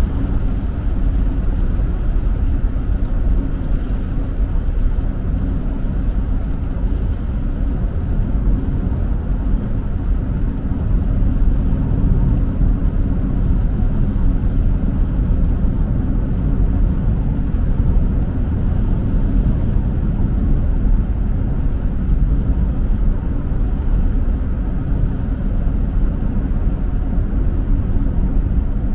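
Steady road noise heard from inside a moving car: low rumble and hiss of tyres on a wet highway, with the engine underneath.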